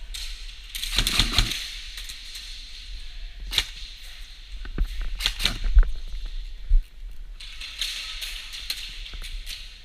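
Airsoft guns firing: scattered sharp pops, loudest just before six seconds in, with two longer stretches of fast crackling, about a second in and near the end.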